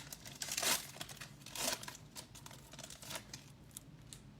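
Hockey card pack wrapper crinkling and tearing as it is pulled open, in a few short rustles, the loudest two in the first two seconds.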